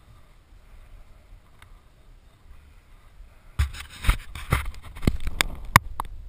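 Faint wind rumble, then about three and a half seconds in a close burst of rustling, scraping and sharp knocks: handling noise of gear or clothing brushing against the helmet camera.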